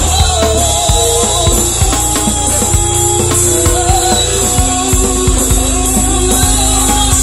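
Live pop band playing: a woman's voice sings long held notes over keyboard, bass and a steady drum-kit beat.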